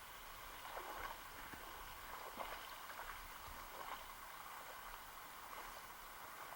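River water running, with irregular splashing and gurgling at the surface between about one and four seconds in.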